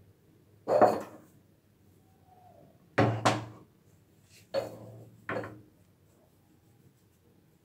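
Wooden rolling pin knocked and set down on a hard board: five sharp knocks, each with a short ring. The loudest comes about a second in, a close pair follows at about three seconds, and two more come near the middle.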